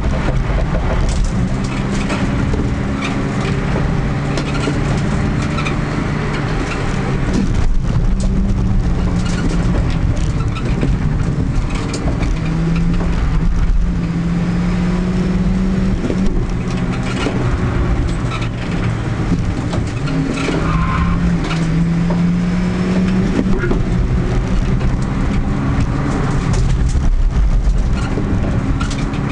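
VW Polo slalom car's engine heard from inside the cabin, revving up and falling back again and again as the car accelerates and slows between cones, holding high revs for a couple of seconds at a time in places.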